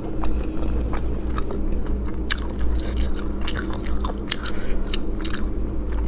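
Close-miked chewing and biting: many short, wet mouth clicks and smacks of a person eating saucy braised shellfish, over a steady low hum.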